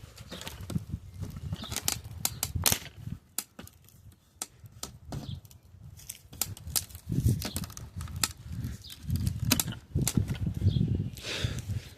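A plastic chainsaw body being broken and pulled apart by hand: an irregular run of sharp cracks, snaps and clatters, with dull low thumps loudest in the second half.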